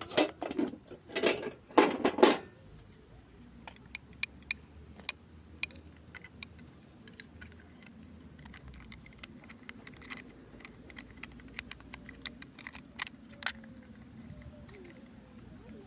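Small plastic toy pieces and packaging being handled: a few louder crinkles and knocks in the first couple of seconds, then scattered light clicks and taps.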